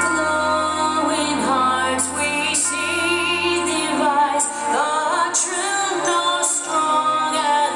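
A woman singing a national anthem over a steady sustained instrumental backing. Her held notes waver with vibrato.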